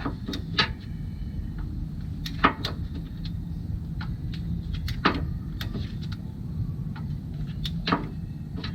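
Sharp metallic clicks from a wrench on engine bolts, a few seconds apart, while bolts are torqued down. A steady low hum runs underneath.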